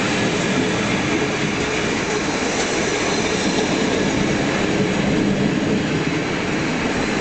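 Passenger coaches of a departing train rolling past at close range, their wheels running steadily on the rails.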